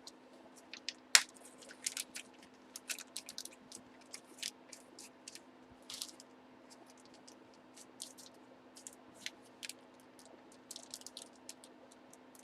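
Small clicks, taps and rustles of a trading card being handled and worked into a plastic card holder, with one sharp click about a second in, over a faint steady hum.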